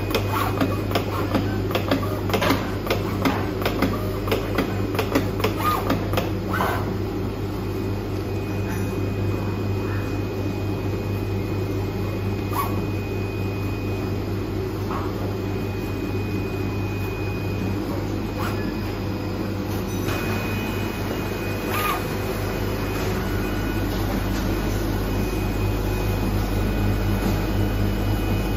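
IECHO PK0705 Plus flatbed digital cutter running with a steady hum. There is rapid clicking for the first several seconds, then only scattered clicks and an on-and-off high whine as the cutting head works the paper sheet.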